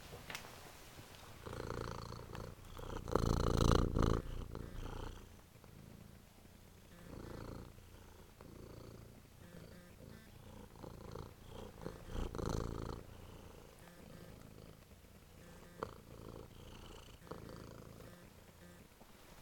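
Domestic cat purring right at the microphone, the purr coming in swells, loudest about three to four seconds in.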